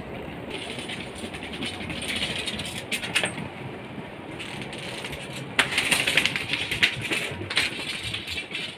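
Rolling suitcase wheels rattling across a hard floor, a fast run of small ticks with a few sharper clicks and louder stretches in the second half.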